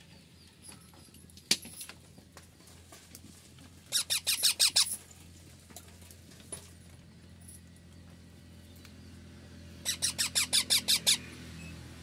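Young parakeet calling in quick runs of short, shrill squeaks, about seven a second: a single squeak early, a burst of about six around four seconds in, and a longer burst of about nine near the end.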